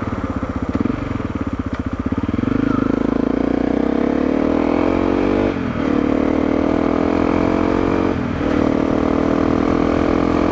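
Honda CRF250L's single-cylinder engine through an FMF Q4 HEX slip-on muffler, revving up hard under acceleration. The pitch climbs, drops sharply twice at upshifts and climbs again each time.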